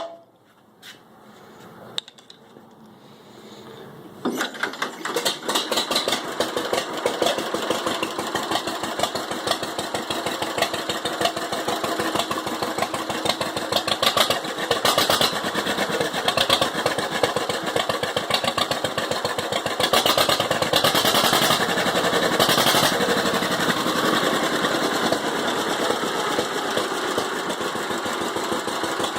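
A 1945 John Deere H's two-cylinder engine starts up about four seconds in and then keeps running with a steady, rapid pulsing beat. Just before it starts there is a single sharp click.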